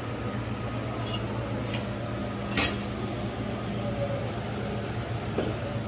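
Metal kitchen utensils clinking, with one sharp clink about two and a half seconds in and a few lighter ticks, over a steady low hum.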